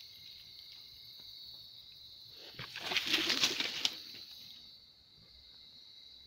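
A steady high-pitched insect chorus, with a loud rustle of leaves and brushing starting about two and a half seconds in and lasting over a second.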